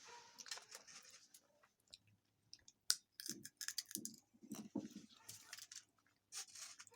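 Sunflower seeds being bitten and chewed: a run of sharp crunches and clicks, with a short pause about two seconds in before the crunching resumes, thickest in the middle of the stretch.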